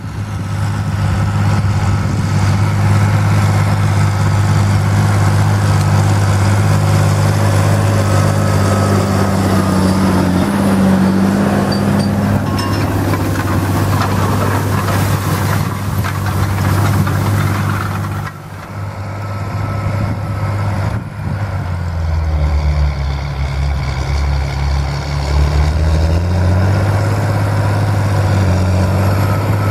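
John Deere 8320 tractor's six-cylinder diesel engine running steadily under load while pulling a disc harrow through stubble. The engine note sags lower for a few seconds past the middle, then comes back up.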